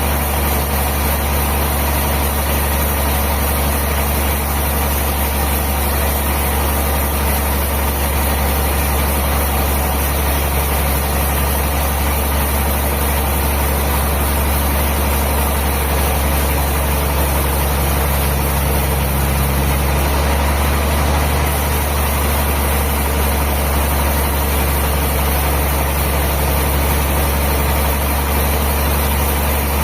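Sawmill machinery running steadily with a deep, even hum. Its pitch and loudness do not change, so no log is being cut.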